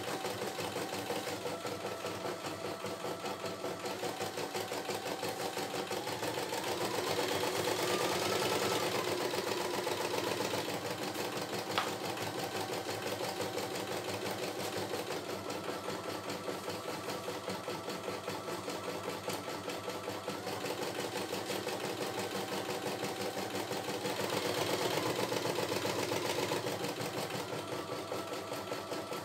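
CNY E960 computerized embroidery machine stitching a design, the needle running in a fast, even rhythm as the embroidery arm moves the hoop. The stitching grows louder for a few seconds twice, a quarter of the way in and near the end, and a single sharp click comes about twelve seconds in.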